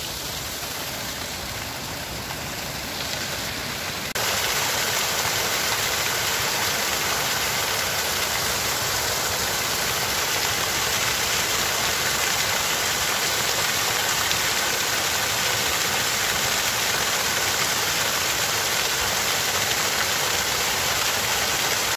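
Small mountain waterfall pouring over a rock face and splashing onto stones in a steady rush of water, which jumps louder about four seconds in.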